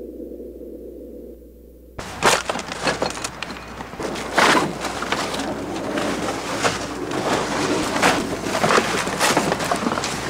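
A low steady drone cuts off abruptly about two seconds in. It gives way to the crinkling and crackling of plastic bags and rubbish being pulled and rummaged through inside a metal skip, in irregular bursts.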